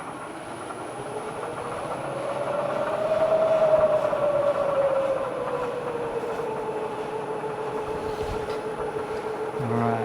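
Bridgeport milling machine spindle, run from a variable frequency drive, spinning up with a 3-inch face mill. Its whine rises in pitch and loudness, peaks a few seconds in, then eases back and settles into a steady tone with a slight regular pulse. A brief low thud comes near the end.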